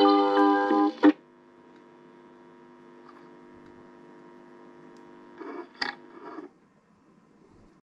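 Brass music playing from a vinyl record through a suitcase record player's built-in speakers stops abruptly about a second in, leaving a faint steady hum. Near the end there is a brief burst of noise with a click as the tonearm is lifted off the spinning record, then quiet.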